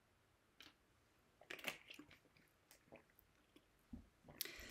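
Faint gulps and small plastic clicks of a person drinking water from a plastic bottle, heard as a handful of soft, separate sounds.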